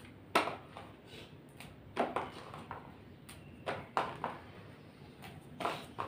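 Hands cleaning large green chillies: about six short, sharp clicks and snaps spaced a second or two apart as the chillies are handled and pulled at.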